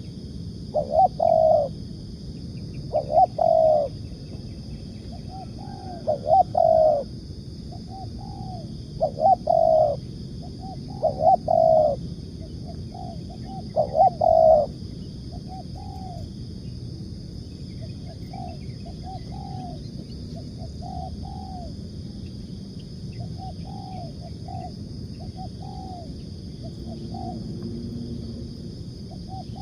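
Spotted dove cooing: loud phrases of two or three coos about every two seconds through the first half, then softer coos carry on to the end.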